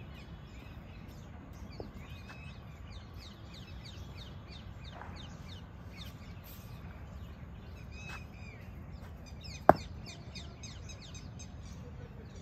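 Small birds chirping continually, with crows cawing now and then, and one sharp knock a little under ten seconds in.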